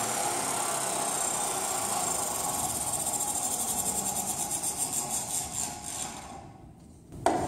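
Table saw running steadily with its blade in a plywood cut, then winding down and fading out over the last couple of seconds. A single sharp knock comes near the end.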